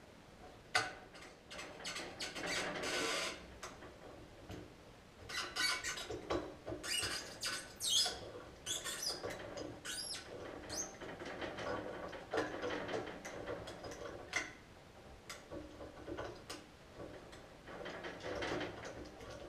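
Vise grips working a torch-heated nut and seized stud held in a bench vise: irregular metal clicks, scraping and short squeaks as the threads are turned and loosened.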